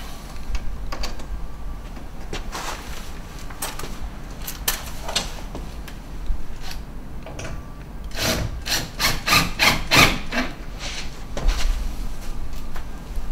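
Cladding trim being fixed to timber battens by hand: scattered knocks and scrapes as it is positioned, then a quick run of about eight hammer strikes, roughly three a second, a little past the middle.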